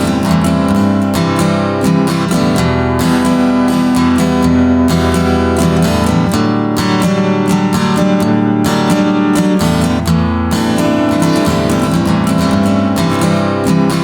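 Music: strummed acoustic guitar over a steady beat.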